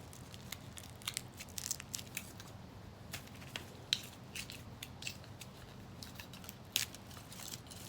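Irregular sharp snips, clicks and small cracks of cutting into and breaking apart the internal layers of a dismantled iPhone 7, with two louder snaps, one around the middle and one near the end.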